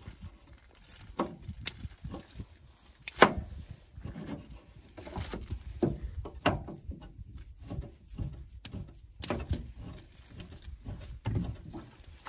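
Scattered knocks and clicks of knives working on a wooden cutting board and table while striped bass are cleaned. The sharpest knock comes about three seconds in.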